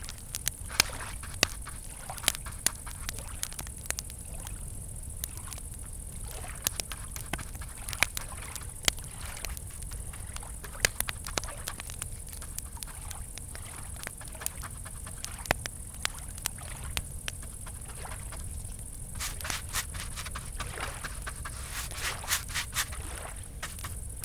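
Campfire crackling, with irregular sharp pops, over a steady high chorus of crickets.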